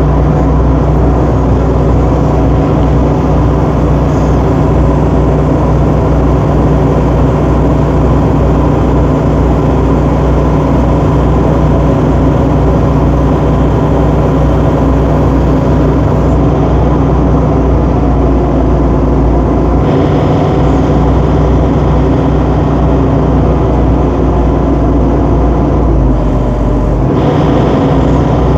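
Tracked excavator's diesel engine running steadily while the bucket is slowly curled closed on its hydraulics. The tone shifts briefly about twenty seconds in and again near the end.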